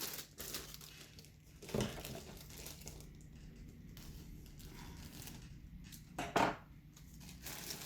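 Plastic parts bags of a model kit crinkling as they are handled, in a few short rustles, the loudest about two seconds in and again past six seconds.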